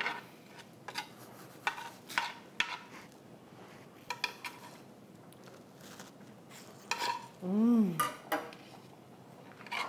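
Kitchen clatter: scattered clicks and knocks of a knife and dishes while a watermelon is cut up and eaten. About seven and a half seconds in there is one short voiced 'mm' that rises and falls.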